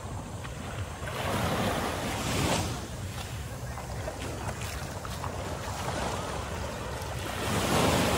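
Small waves washing up on a sandy beach, with two louder surges about a second in and near the end, over wind on the microphone.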